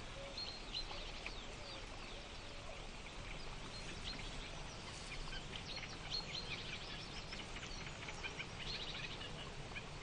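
Reed-bed ambience: small songbirds give faint, scattered chirps and rapid trills over a low steady hiss.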